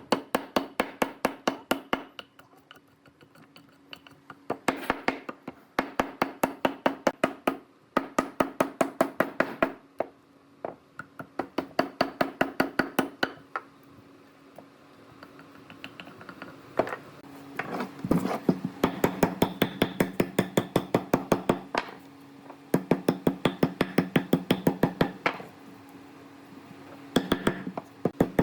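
Rapid runs of sharp knocks on wood, about six a second, coming in bursts of one to two seconds with short pauses, over a faint steady hum.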